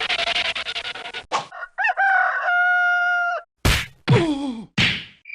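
A run of short stock sound effects: a rapid rattling noise for about the first second, then a rooster crowing about two seconds in, its call rising and then held steady. Near the end come a sharp hit, a falling sweep and a brief noisy burst.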